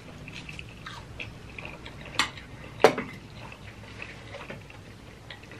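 Close-up chewing and mouth sounds of people eating fried mozzarella sticks, with faint small crackles throughout. Two sharp clinks of a utensil against a metal dipping bowl come about two and three seconds in; the second is the louder.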